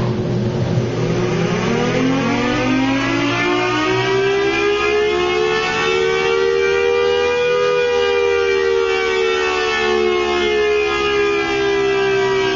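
Tornado siren starting abruptly and winding up, its tone rising steadily for about six seconds, then holding near the top and easing slightly down.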